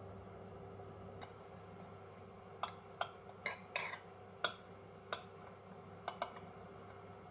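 Jam tarts being lifted out of a metal bun tin: about eight light clicks and taps of fingers and pastry against the tin, starting nearly three seconds in, over a low steady hum.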